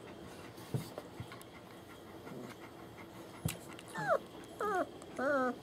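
German Shepherd whimpering: three short whines near the end, the first two falling in pitch and the last wavering. Before them there are only faint soft sounds and a few light clicks.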